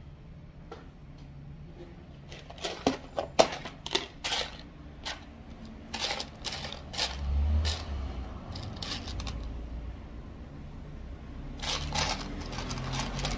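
Plastic craft buttons clicking and rattling in a plastic box as a hand rummages through them: a run of quick clicks for several seconds, a short pause, then more clicking near the end.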